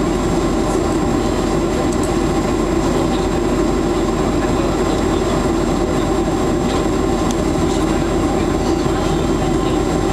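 Steady cabin rumble of an airliner taxiing after landing: engine and airflow noise heard through the fuselage, unchanging in level, with a thin steady high whine.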